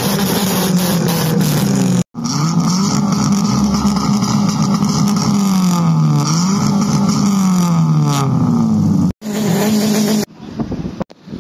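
Peugeot 106 engine idling steadily at first. After a cut, a Ford Ka's engine is revved up and down several times, its exhaust note rising and falling. Near the end a steady engine note returns briefly before dropping to quieter wind noise on the microphone.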